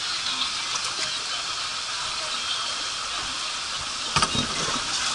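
Water running down a water-slide flume, a steady hiss, with a single thump about four seconds in.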